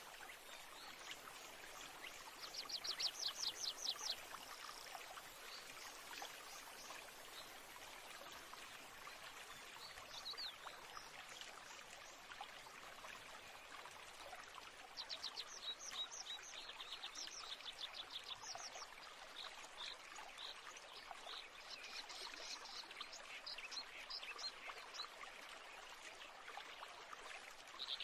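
Faint background ambience of a steady rushing-water hiss, with birds chirping in rapid high trills several times.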